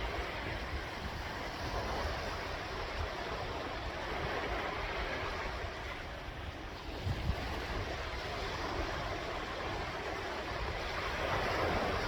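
Sea waves breaking and washing on the shore: a continuous surf rush that swells about four seconds in and again near the end.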